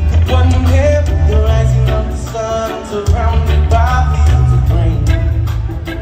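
A live reggae rock band playing, with a sung lead vocal over a heavy bass line, heard from within the audience of a concert hall.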